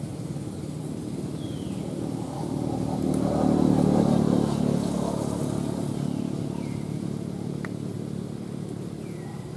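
A motor vehicle engine passing by, growing louder to a peak about four seconds in and then slowly fading.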